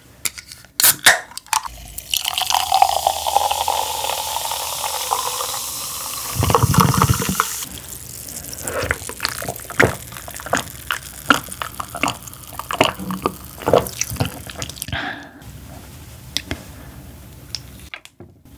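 A canned Jim Beam grapefruit highball is poured fizzing into a glass, the pour's note rising as the glass fills. Then come sips and swallows, with many small crackles from the carbonation.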